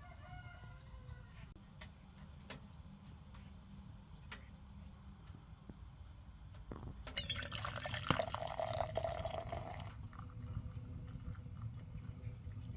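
Scattered faint drips or ticks, then liquid pouring for about three seconds, starting a little past halfway.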